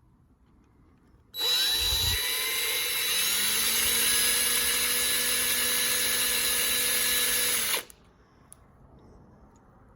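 Electric drill drilling out a rivet on a die-cast toy car. It spins up with a rising whine, runs steadily for about six seconds and cuts off suddenly.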